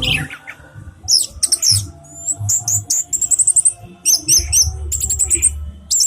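Orange-headed thrush (anis merah) singing a long run of rapid, high, varied phrases, with a falling note at the start and fast trills, over a low rumble.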